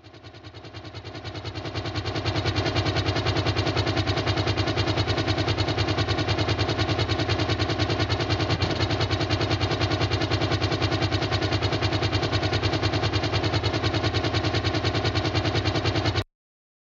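DJI Phantom FC40 quadcopter's motors and propellers running steadily in flight, a dense, fast-pulsing mechanical buzz. It fades in over the first two seconds and cuts off suddenly near the end.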